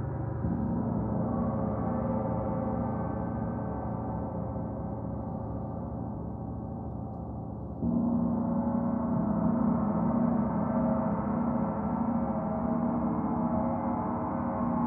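Gongs ringing together in a dense, sustained wash of many overlapping tones. A soft new stroke comes about half a second in, and a louder stroke about eight seconds in brings the level up sharply.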